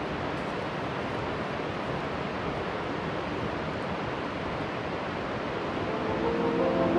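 Steady rush of river water over a riffle. Music fades in near the end.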